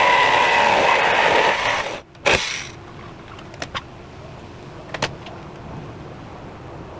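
Power saw cutting through the sheet-metal door, running steadily and then stopping about two seconds in. A sharp clank follows just after, then a few faint clicks.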